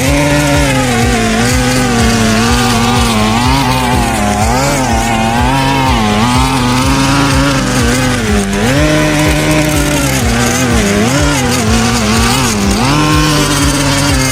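Small petrol mower engine running hard, its pitch dipping and recovering again and again.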